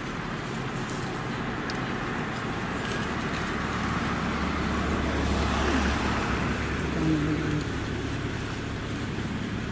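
Vehicle engine running with a steady low drone and road and wind noise, the drone strengthening in the middle, with a brief low tone about seven seconds in.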